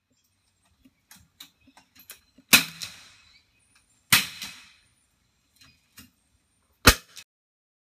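.22 LR rimfire rifle shots: three sharp reports about two and a half, four and seven seconds in, the first two trailing off in a short echo. Faint light clicks between them.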